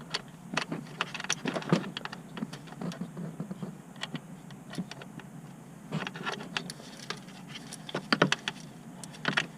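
Ratchet clicking in short runs of metallic ticks as a nut is tightened down on the starter motor's cable terminal stud.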